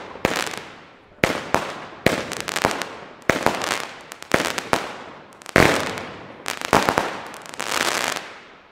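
Lesli 'Wütende Heidi' 100-shot fireworks battery firing: sharp bangs roughly once a second, some in quick pairs, each followed by a fading crackle of the bursting stars. The shots die away near the end.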